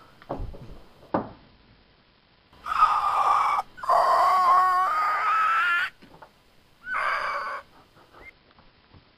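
A man's voice letting out three loud, high shrieks, the middle one the longest and rising in pitch at its end, after two soft knocks in the first second or so.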